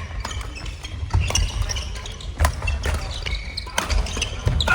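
Indoor court sounds of doubles play: dull thuds on the floor and several sharp hits, the loudest about two and a half seconds in, echoing in a large hall.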